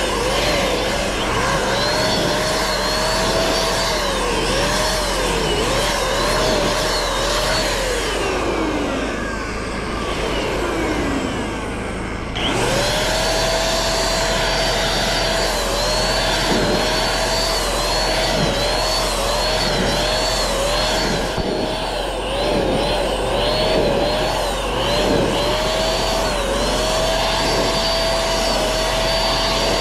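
Handheld electric paint sprayer (Penkiya-kun) running with a steady whine whose pitch dips and recovers again and again. About eight seconds in it winds down, falling in pitch, then starts up abruptly again a few seconds later.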